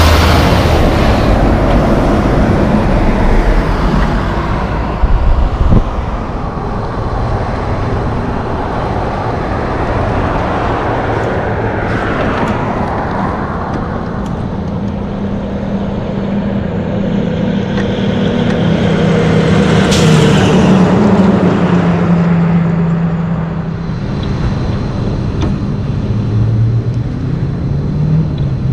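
Logging trucks and traffic passing on a highway. A heavy diesel logging truck goes by close at the start, its engine and tyres at their loudest, then fades away. Further vehicles pass with an engine hum that swells to a peak in the middle and dies down again.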